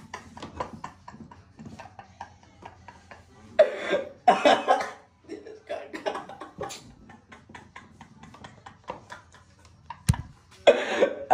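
A person making short breathy coughing vocal sounds, a few seconds in and again right at the end, with faint scattered clicks between and one sharp click near the end.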